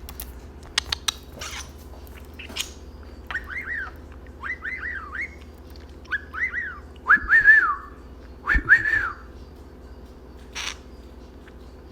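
Budgerigar chirping: a few sharp clicks, then from about three seconds in a run of short, arching whistled chirps in quick groups.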